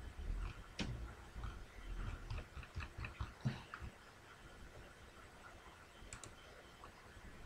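Faint irregular clicks and soft knocks over the first few seconds, then only a low steady background hiss.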